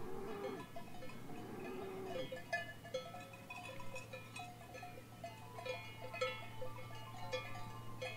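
Bells tinkling in scattered, irregular notes over a low steady hum.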